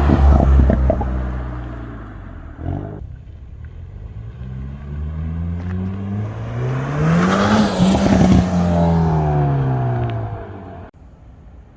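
2021 Hyundai Veloster N's turbocharged four-cylinder breathing through an SXTH Element carbon-fibre intake, revving up and falling back: at the start and again at the peak of a rev about seven seconds in, the throttle lifts and a rapid fluttering chatter of turbo flutter is heard as the revs drop. The sound drops off abruptly near the end.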